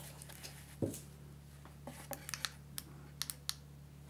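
Faint tabletop handling noises: a soft knock about a second in, then a few small sharp clicks as small puck lights are touched and items are lifted out of a cardboard box, over a low steady hum.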